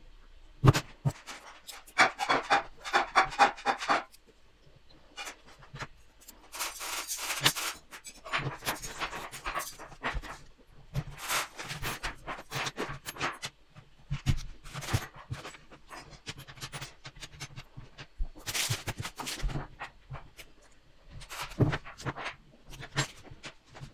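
Small metal construction-kit parts clinking and rattling as they are picked through and handled on a wooden table, with a run of rapid clatter about two seconds in and several short bursts of rustling and clicking after it.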